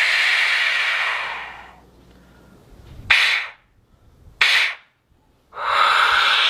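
Clay Aztec death whistle (ehecachichtli) blown in loud, chaotic, wind-like screams: a long blast that fades out, two short sharp blasts, then another long blast near the end.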